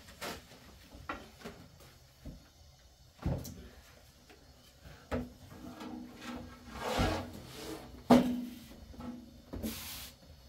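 Scattered knocks and rubbing of objects being handled, with a sharp knock about three seconds in and the loudest one about eight seconds in.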